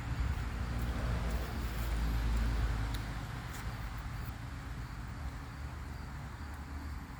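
Rain falling steadily with a hiss. A low rumble swells to its loudest about two seconds in and then fades.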